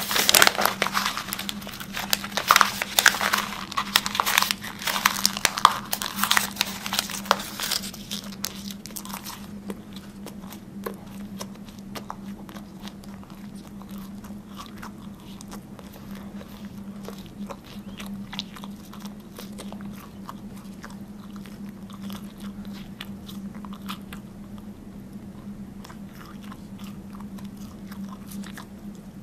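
A mouth biting and chewing a piece of paper up close, loud crinkling crunches for about the first nine seconds, then quieter, finer crackling chews. A steady low hum runs underneath.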